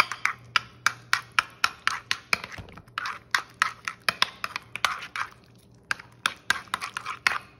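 A metal fork beating a thick mayonnaise dressing in a bowl, clinking against the bowl's sides at about four clinks a second, with a short pause about two-thirds through.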